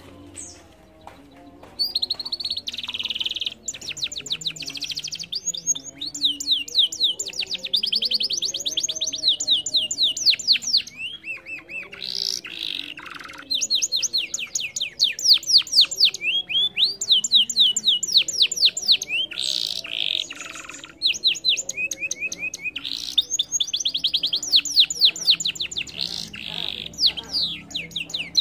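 Domestic canary singing a long, rapid trilling song of fast repeated high notes. It starts about two seconds in, with a brief pause a little past two-thirds of the way.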